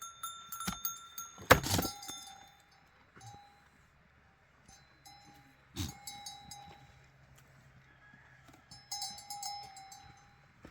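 Metal livestock bells clinking and ringing irregularly, with a loud sharp knock about a second and a half in.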